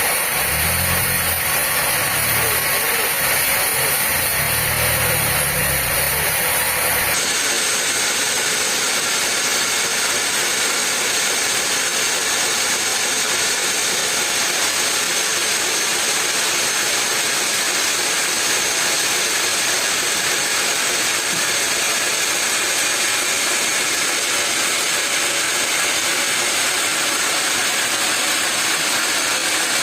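Steady mechanical noise of running machinery, with an abrupt change in sound about seven seconds in.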